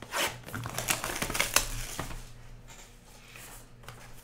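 Trading cards and pack wrappers being handled: a quick run of clicks and crinkles over the first two seconds, then quieter scattered clicks and rustling.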